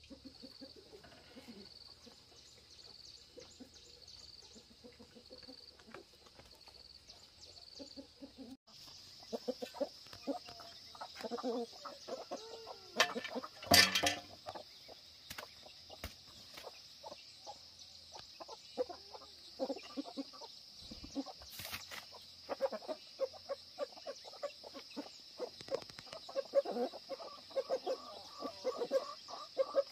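Chickens and a rooster clucking in a farmyard, with one loud call about 13 to 14 seconds in, over a steady high buzz that pulses about once a second during the first eight seconds.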